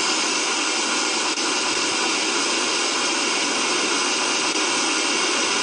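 Spirit box radio static: a steady hiss of white noise, held at an even level.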